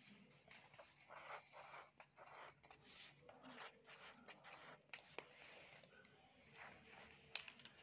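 Pencil writing on notebook paper: short, faint scratching strokes.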